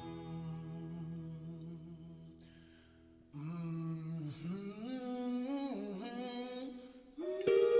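Music: a slow hummed melody over held tones. The held tones fade during the first three seconds, and the moving hummed line comes in just after a short dip, growing louder near the end.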